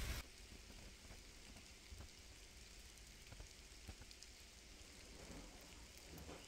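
A loud rush of outdoor rain cuts off abruptly just after the start, leaving near silence: a faint patter of rain with scattered light ticks.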